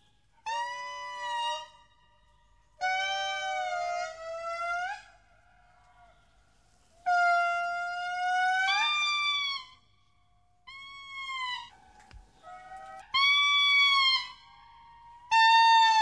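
Indri lemurs singing in a series of long, trumpet-like notes, each a second or more, mostly held level and then sliding upward at the end, with short pauses between.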